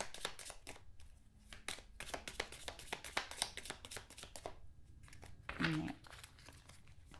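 A deck of round oracle cards being shuffled by hand: a quick run of light card clicks and slides, with two short pauses, as the cards are shuffled until one comes loose to be drawn.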